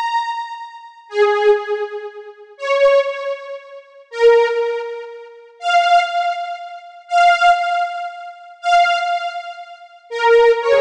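GTG K1 software synthesizer playing a slow step-sequenced melody with an electric-piano-like tone, driven by the Blip2000 matrix step sequencer. Single notes come about every second and a half, each fading away. The pitch steps up and down, and the same note sounds three times in a row in the middle.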